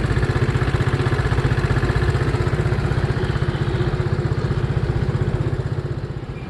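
Motorbike engine running with an even, rapid low pulsing that eases off near the end.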